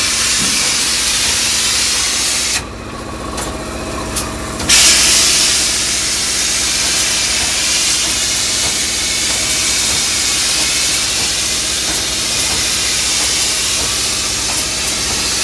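Polyurea spray gun hissing loudly as it sprays coating onto a wooden boat hull, over the steady hum of a running machine. The spray cuts off for about two seconds near the start, then resumes.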